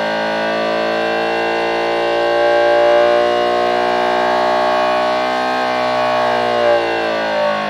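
Homemade optical engine-sound synthesiser imitating a Subaru EJ20 flat-four with equal-length exhaust: a slotted spinning disc read by a light sensor drives a vibration actuator that rings a steel plate. It is held at high revs, around 7,000 rpm, as one steady high-pitched engine note, easing down in pitch near the end.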